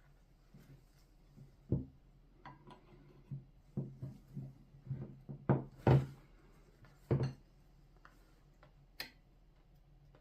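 A string of irregular knocks and clinks from hard parts and tools being handled and set down on a workbench, the loudest two a little past the middle, then a single sharp click near the end.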